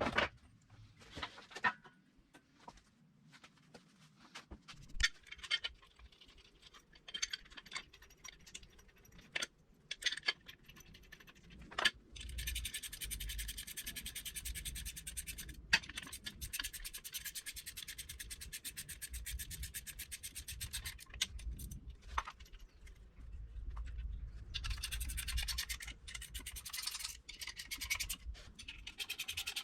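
Garage assembly work on metal car parts: scattered clicks and knocks of tools and parts being handled. About twelve seconds in, a steady rasping sound with a fast, even pulse and a low hum starts, as of a power tool working on metal, and runs on with short breaks.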